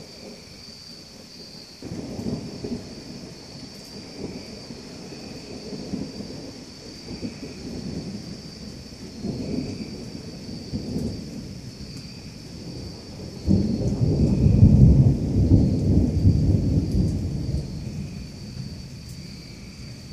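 Thunder rumbling in several rolling swells over steady rain. About two-thirds of the way in, a much louder peal starts suddenly, rumbles for a few seconds, then dies away.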